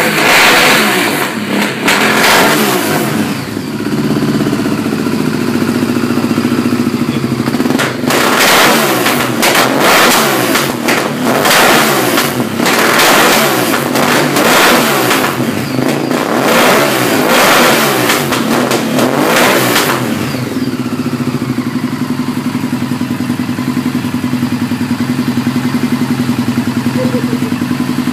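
Honda VTR1000 Firestorm's 90-degree V-twin engine running loud and being revved in repeated short blips, then settling to a steady idle about twenty seconds in.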